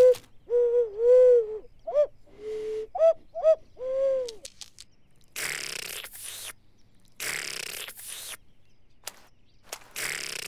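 Cartoon penguin giving a string of short hooting, cooing calls, then three separate bursts of crunchy munching as it eats a pancake.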